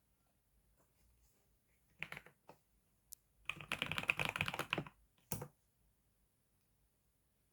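Typing on a new computer keyboard: a few keystrokes about two seconds in, then a fast run of typing lasting over a second, and a last couple of keystrokes.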